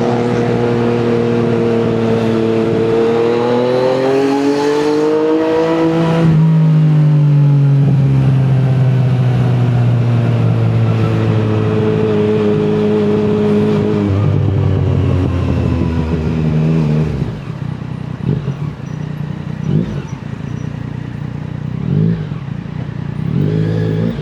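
Yamaha MT-09 three-cylinder engine through an Akrapovic exhaust under way: it revs up steadily, drops pitch at a gear change about six seconds in, holds a steady note, steps down again about fourteen seconds in, then rolls off and gives several short throttle blips near the end.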